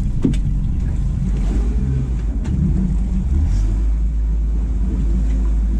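Outboard motor running steadily at low speed on an aluminium fishing boat, a constant low hum, with a couple of light knocks near the start and about two and a half seconds in.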